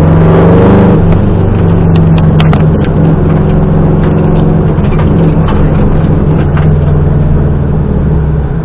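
Subaru Impreza rally car's engine running at a steady speed, heard from inside the cabin, with a few clicks and knocks about two to three seconds in.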